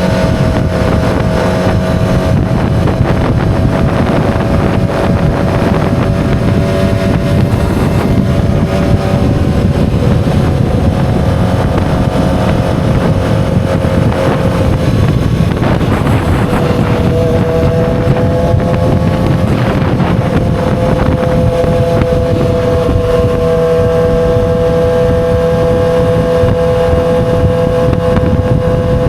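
2007 Yamaha R6's inline-four engine running steadily while riding, with wind rush on the microphone. The engine note steps down in pitch about halfway through, then holds steady.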